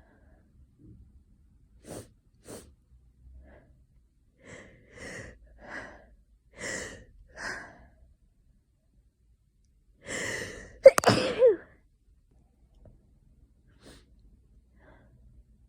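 A human sneeze build-up from an itchy nose: two quick sniffs, then five catching breaths that grow louder, a sharp intake of breath, and about eleven seconds in one loud sneeze ending in a cry that falls in pitch.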